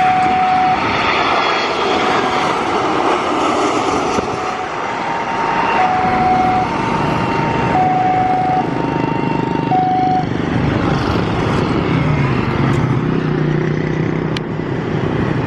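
Jet airliner engine noise mixed with passing road traffic and motorbikes. A two-tone tone alternates high and low about once a second through the first ten seconds, and a motor rises and falls in pitch near the end.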